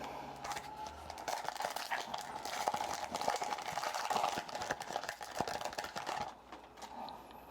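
Foil wrapper of a trading card pack being torn open and crinkled, a dense crackle that goes on for about six seconds and then dies down.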